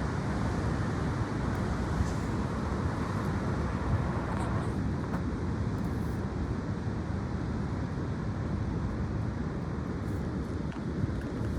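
Strong gusty wind buffeting the microphone, a steady low rumble.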